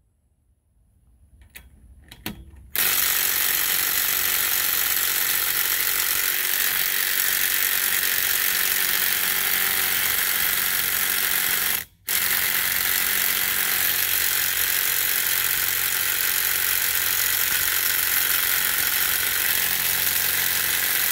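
Ryobi P235 18V brushed impact driver hammering on a lug nut through a half-inch impact socket, in two long runs split by a brief stop about halfway through. The nut does not break loose: the tool is not up to the job. A few faint clicks come before the first run starts.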